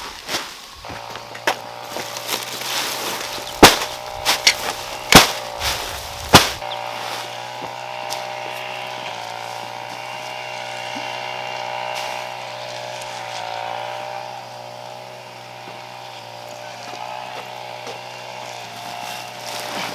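A handful of sharp knocks in the first six seconds or so, over a steady motor hum of fixed pitch that runs on after the knocks stop.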